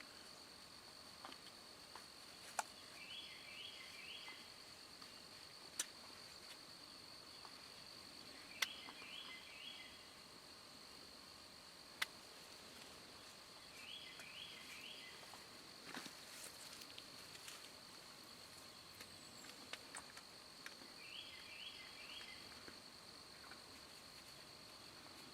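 Quiet outdoor ambience with a faint steady high whine. A short three-note call repeats four times, about every six seconds, and a few sharp clicks stand out, the loudest about a third of the way in.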